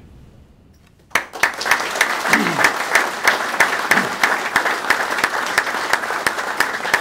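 Audience applauding: dense clapping from many hands that starts suddenly about a second in and keeps going steadily.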